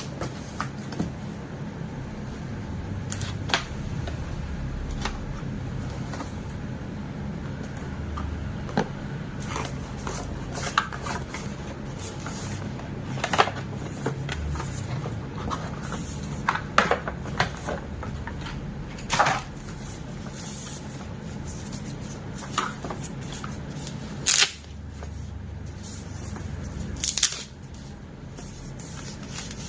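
Unboxing handling sounds: a cardboard box and its packaging being opened and moved about, with scattered clicks, scrapes and rustles over a steady low hum.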